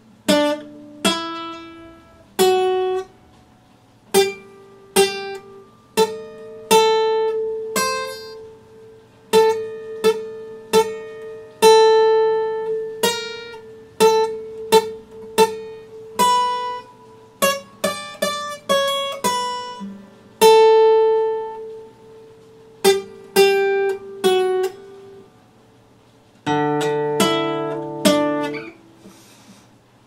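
Epiphone acoustic guitar played solo: a slow melody of single plucked notes, each sharp at the start and ringing out. Near the end a fuller chord is struck and held for about two seconds.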